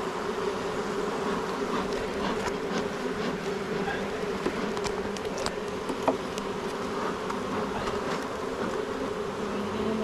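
Honeybees buzzing steadily in a dense hum around an open hive being inspected, with a few light clicks in the middle.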